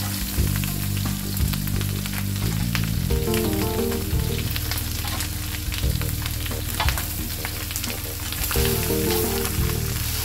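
Chicken pieces and chopped peppers, tomatoes and citrus sizzling on a hot flat tawa griddle, crackling steadily, with a slotted metal spatula scraping and turning them.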